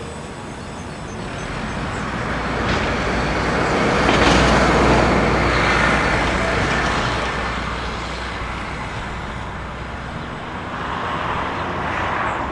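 Road traffic going past: a vehicle's noise swells to a peak about four seconds in and fades, and another builds near the end, over a steady low hum.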